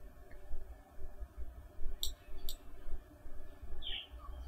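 Two computer mouse clicks about half a second apart, over a steady low hum.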